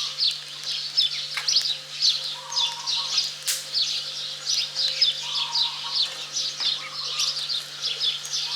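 Small birds chirping without pause, short dropping chirps several a second, over a faint steady low hum, with one sharp click about three and a half seconds in.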